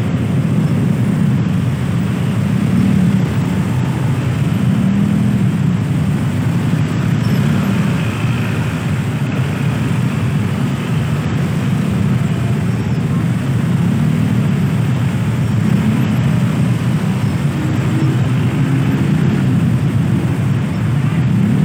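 Dense jam of motorcycles and scooters with their engines idling and creeping at low revs, a steady low engine hum with no break.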